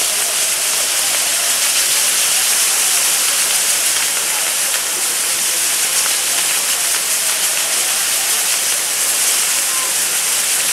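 Maltese ground fireworks: many firework fountains (gerbs) on large wheel set-pieces burning together in a dense, steady hiss.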